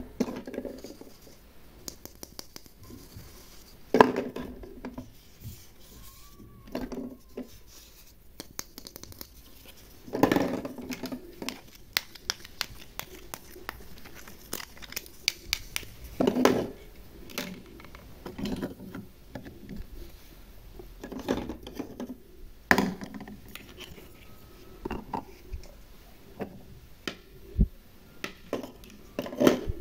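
Plastic toy-kitchen pieces (toy fruit, utensils and a small pot with a lid) being handled, set down and knocked against the hollow plastic toy kitchen. The clacks and rattles are irregular, with quieter scraping and rustling between them.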